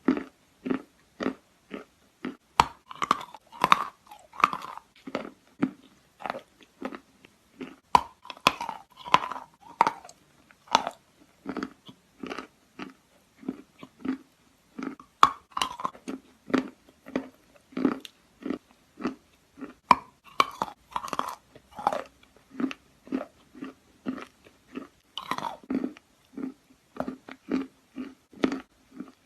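Dry, gritty Akbulak natural chalk being bitten and chewed close to the mic, crunching very ringingly. Sharp crunches come about twice a second, with denser clusters every five seconds or so as fresh bites are taken.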